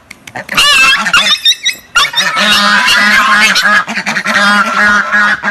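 Loud, honking animal calls: wavering high calls in the first two seconds, then a long run of rapid, pulsing calls that cuts off abruptly near the end.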